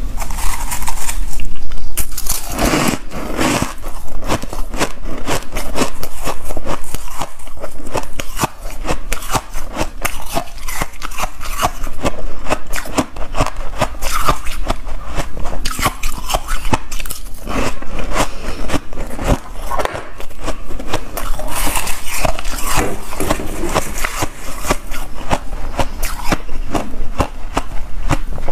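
Shaved ice being chewed close to a clip-on microphone: loud, rapid, continuous crunching with some scraping.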